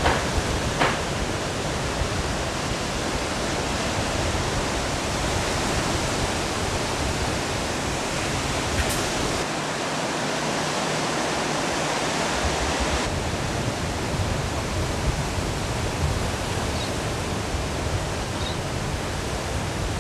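Steady rushing noise of wind on the microphone and ocean surf, with no engine clearly heard; the low rumble drops out for a few seconds about halfway through.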